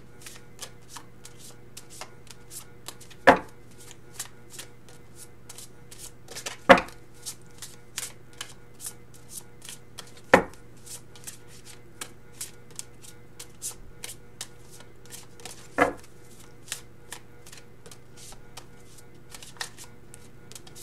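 Angel Tarot cards being shuffled by hand: a steady patter of small card clicks, two or three a second, with four louder knocks of the deck against the table. A low steady hum lies underneath.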